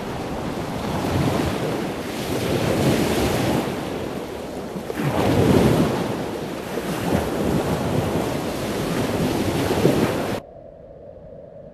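Ocean waves: a rushing surf noise that swells and subsides every few seconds, with wind mixed in. It cuts off suddenly near the end, leaving a faint steady hum.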